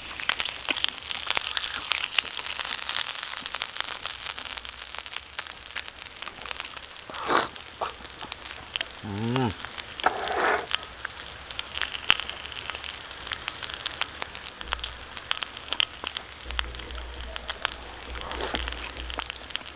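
Meat sizzling on an iron griddle plate heated over a campfire: a steady frying hiss dotted with fine crackles.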